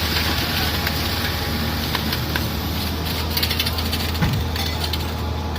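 Excavator's diesel engine running steadily at a construction site, with scraping and rattling clicks in the second half and a single knock about four seconds in.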